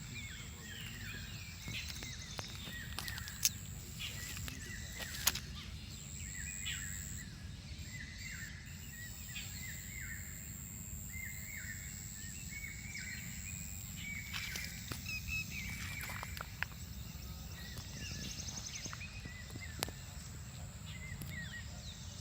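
Birds chirping in short, repeated calls over a steady low hum, with a few sharp clicks.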